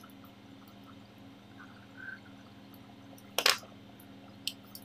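Quiet handling of insulated control wire and pliers at a workbench, with one short sharp crack about three and a half seconds in and a smaller click near the end, over a faint steady hum.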